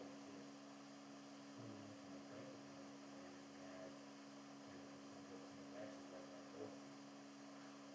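Near silence: a steady electrical hum under the recording's background noise.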